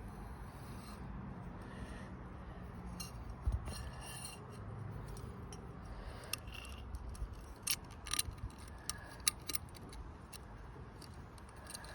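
Light metallic clicks, clinks and scrapes from a bonnet release cable and its fittings being handled and fed through a hole, scattered irregularly and more frequent in the second half.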